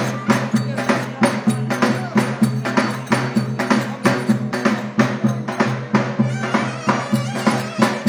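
Live Turkish wedding dance music: a davul bass drum beats a steady rhythm of about two strokes a second, with a melody instrument holding sustained notes over it.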